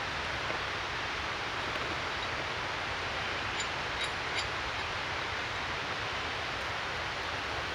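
Steady outdoor background hiss, even throughout, with a few faint clicks near the middle.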